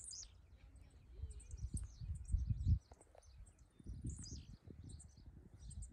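Small birds chirping and twittering in quick, high calls, over uneven low rumbling gusts that are loudest from about one to three seconds in and again around four seconds, like wind buffeting the microphone.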